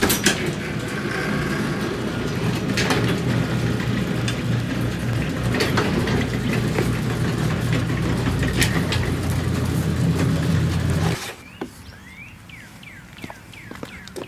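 Race car engines running loud and steady, with scattered clicks and knocks; the sound cuts off abruptly about eleven seconds in. After that, a quiet background with faint bird chirps.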